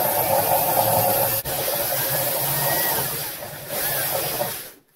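Drill spinning a rotary rasp at low speed, grinding resin and gelcoat buildup off the edge of a fiberglass hull layup along its masking-tape boundary. It checks briefly about a second and a half in and stops just before the end.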